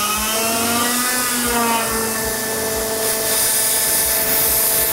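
Belt grinder's electric motor and abrasive belt running at speed with a steady whine and a hiss. The pitch shifts during the first two seconds as the speed is turned up, then holds. The high hiss grows stronger about three seconds in.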